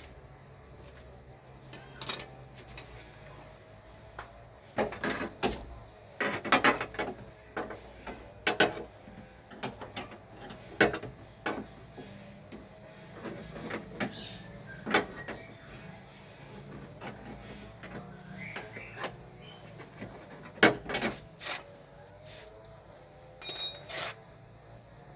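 Irregular clicks, knocks and clatter of tools and parts being handled during a car door repair, in uneven clusters with quieter gaps between.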